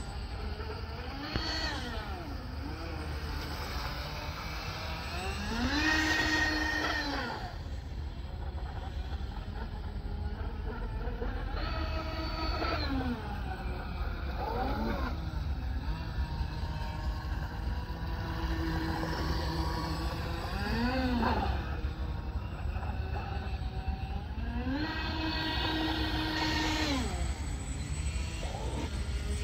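Twin Roxxy brushless outrunner motors driving TFL water jets on an RC model boat, whining as the throttle is opened and closed: the pitch climbs, holds and drops again about half a dozen times.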